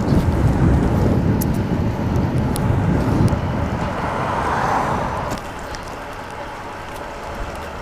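Wind rumbling on a moving bicycle's action-camera microphone, with city street traffic, easing about five seconds in.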